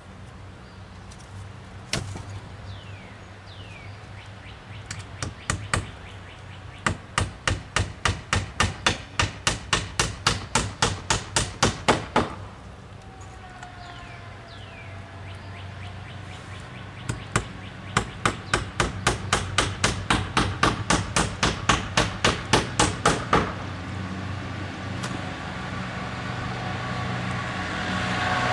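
Hammer driving nails into wooden fence boards: two long runs of quick, even strikes, about three a second, with a few single blows before them. Birds chirp faintly in the pauses.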